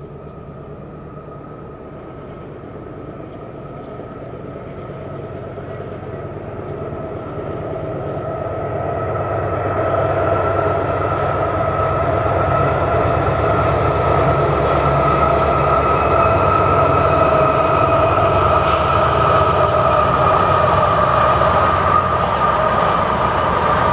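Canadian Pacific diesel locomotives hauling a hopper train approach and pass, growing steadily louder over the first ten seconds. The sound then holds at a loud, steady rumble with a steady whine over it as the locomotives and hopper cars roll by.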